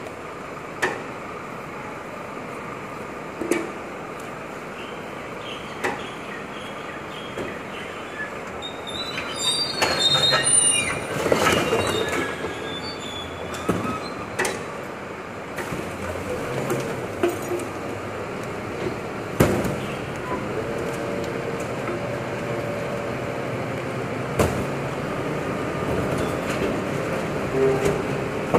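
Scania P310 rear-loader refuse truck's diesel engine running while its rear hopper is worked, with scattered sharp metal clanks and a stretch of high metal squeals and creaks about ten seconds in. A steadier engine drone comes up in the last third.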